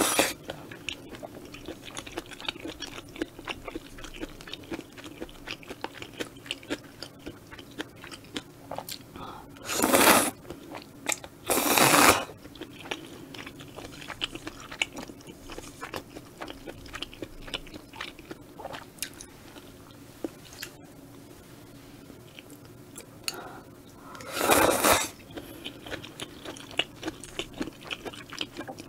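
Close-miked eating of spicy stir-fried squid and udon noodles: steady wet chewing and biting with many small mouth clicks, and three louder slurps of noodles, about ten and twelve seconds in and again near the end.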